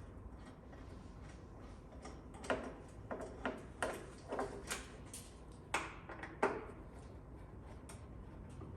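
A run of sharp, irregular clicks and knocks, about ten in four seconds, from plastic rivets and bolts being popped off and taken out of a side-by-side's plastic body panels.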